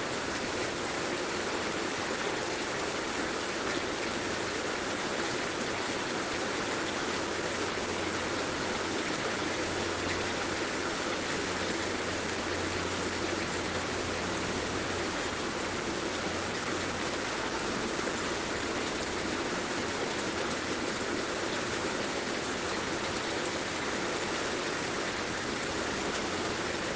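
Heavy rain falling steadily, an even rushing hiss, with a faint low hum for a few seconds near the middle.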